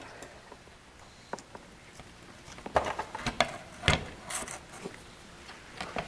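Scattered clicks and knocks from gloved hands handling the fuel pump sender assembly in the fuel tank opening. The clicks come thickest between about three and four and a half seconds in.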